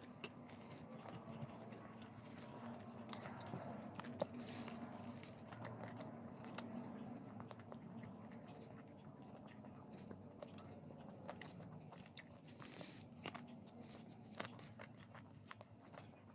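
Close-up chewing and biting into crisp fried food, with scattered small crunches and mouth clicks.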